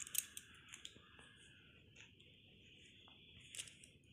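Metal spatula scraping and knocking against a kadai while stirring fried cauliflower into its sauce: a quick run of short scrapes in the first second and a couple more near the end, over a faint steady hiss.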